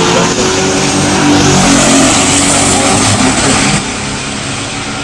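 Two classic muscle cars, one a Pontiac GTO, with V8 engines at full throttle as they launch and accelerate down a drag strip. The engine notes climb in pitch, then fade about four seconds in as the cars pull away.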